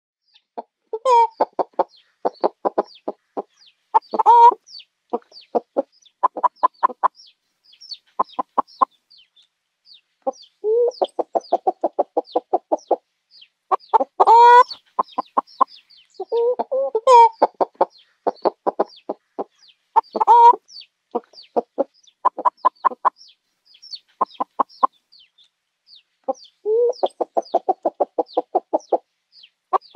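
Chickens clucking in quick runs of short notes, broken every few seconds by a louder, drawn-out call.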